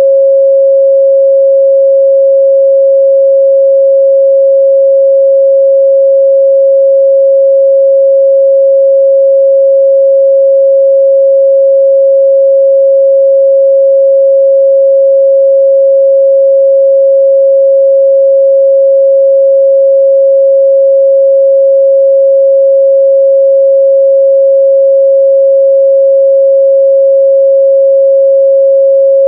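A pure 545 Hz sine-wave test tone, held steady and loud with no change in pitch or level.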